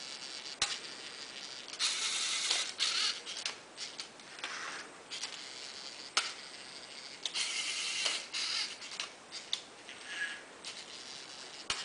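Lego NXT card-dealing robot's geared motors whirring in repeated short spells, with a sharp click now and then, as it deals cards one at a time into piles.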